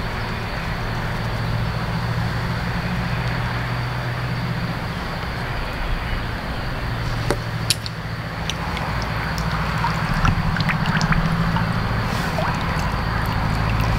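Shallow pond water disturbed by binoculars being dipped on their strap: a running wash of water with small splashes and drips, clicking more often from about seven seconds in. A steady low rumble lies underneath.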